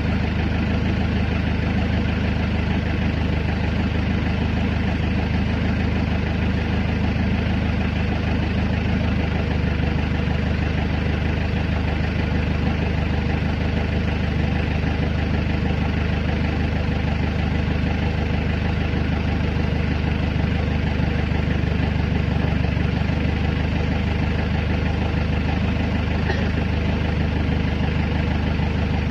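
Engine of a hydraulic pile-pressing rig running steadily at an even idle, a constant low hum.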